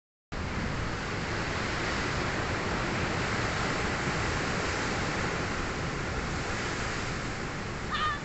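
Sea waves washing on the shore in a steady rush, with wind buffeting the microphone. A brief high chirping call near the end.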